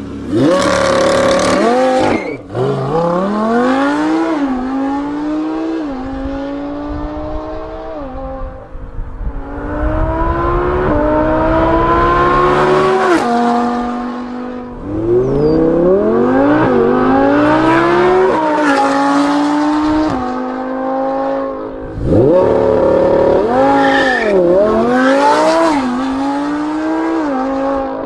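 Audi R8 V10 Plus's V10 engine, breathing through a Fi Exhaust valved catback, accelerating hard through the gears in launches and flybys. Its pitch climbs steeply and falls sharply at each upshift, over several separate runs.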